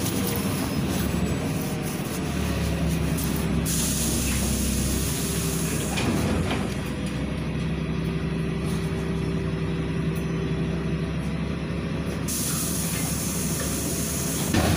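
Inside a LiAZ 5292.67 city bus driving at a steady speed: even engine drone and tyre and road noise, with a few brief rattles and knocks from the body.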